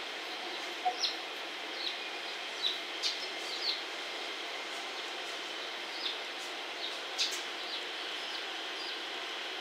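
Small birds chirping in short, scattered calls, about a dozen over a few seconds, over a steady hiss of background noise with a faint high tone.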